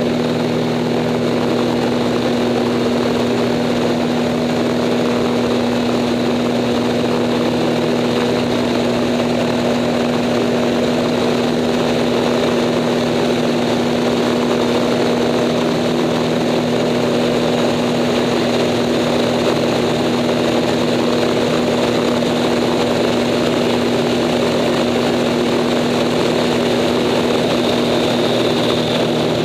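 Stolp Acroduster SA-750 biplane's piston engine and propeller running steadily in flight, heard from the cockpit, with one unchanging pitch throughout.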